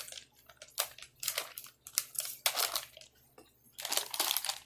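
Plastic dog-treat bag crinkling in irregular bursts as it is handled and opened.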